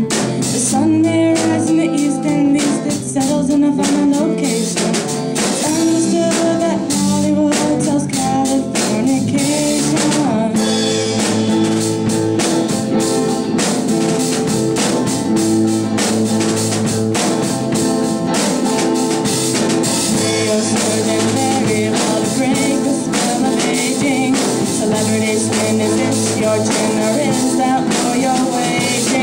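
Live rock band playing with drum kit and guitar, and some singing.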